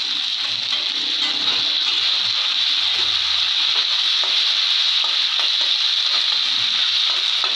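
Onions and ginger-garlic-green-chilli paste sizzling steadily in hot oil in a metal kadai, with light scrapes of a metal spatula stirring them.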